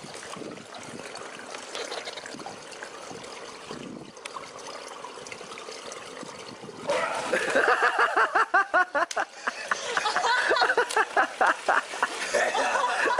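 Swimming-pool water trickling and splashing, joined from about seven seconds in by a louder, fast run of short pitched pulses, about four or five a second.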